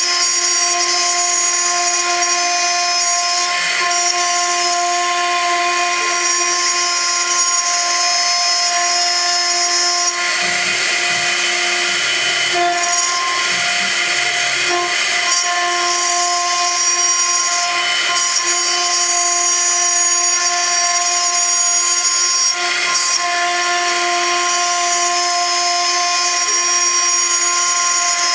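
High-frequency spindle of a MillStep gantry CNC milling machine cutting aluminium: a steady high whine over cutting noise, which wavers and breaks briefly about ten seconds in and again about twenty-two seconds in.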